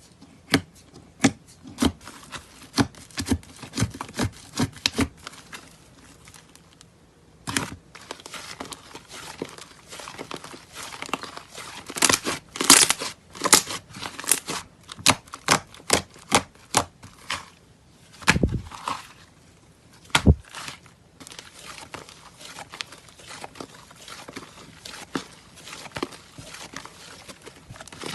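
Slime being pressed and stretched, giving many sharp clicks and pops over crinkly crackling. A short lull comes about six seconds in, and then the crackling grows denser for several seconds.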